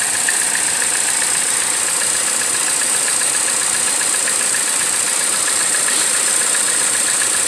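Chevrolet Cruze engine idling steadily under a constant high hiss, like air being sucked in at the top of the engine: the sign of a vacuum leak.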